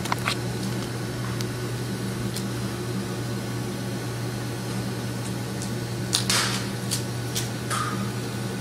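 Steady low machine hum, with a few light clicks and a brief rustle about six seconds in.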